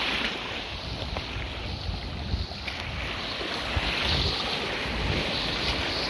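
Sea waves breaking and washing around in shallow water close to a handheld phone, with wind buffeting the microphone as a steady low rumble under the hiss of the surf.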